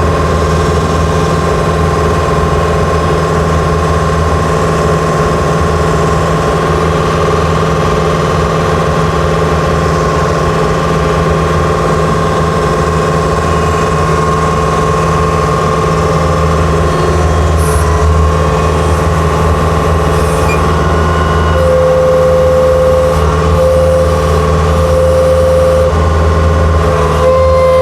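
Skid steer engine running steadily and loudly, with a whining tone that shifts in pitch and comes and goes through the second half.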